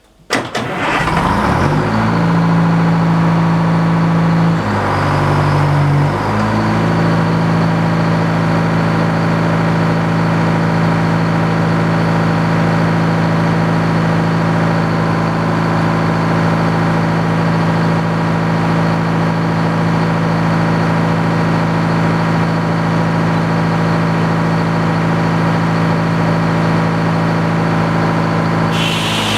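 The sawmill's engine starts, comes up to speed within about two seconds, and then runs steadily, with a brief change in pitch around five seconds in.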